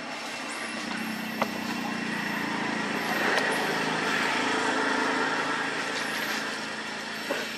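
A motor vehicle engine running steadily, growing louder around the middle and then easing off. A sharp click sounds about a second and a half in.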